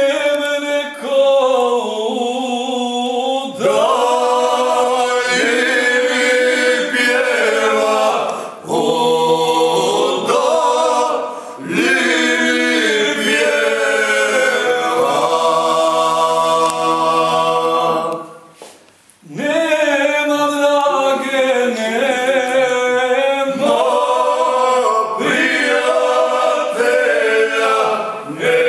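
Group of men singing a Krajina-style folk song (krajiška pjesma) together a cappella, several voices in long held phrases broken by short breaths, with a longer break about two-thirds of the way in.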